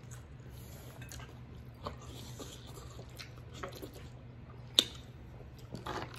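Eating sounds: wet squishing and chewing of butter-dipped king crab meat and sauce-covered noodles, with scattered small clicks and one sharp click about five seconds in.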